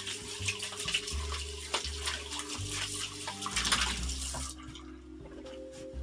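Bathroom sink faucet running while hands are rubbed and rinsed under the stream; the water is shut off about four and a half seconds in. Low background music with steady bass notes plays underneath.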